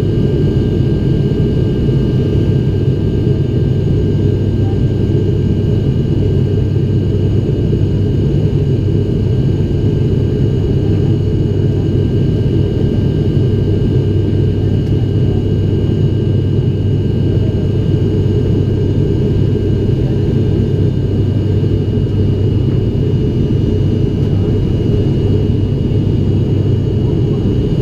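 Steady cabin drone of an ATR 72-500's Pratt & Whitney PW127 turboprop engines and six-blade propellers in flight, a deep hum with a thin, steady whine high above it.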